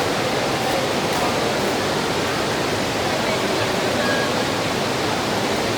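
Heavy rain falling, an even, steady hiss.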